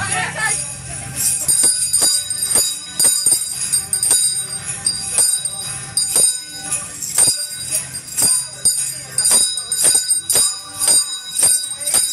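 A Salvation Army handbell being rung continuously over dance music with a steady beat of about two strokes a second.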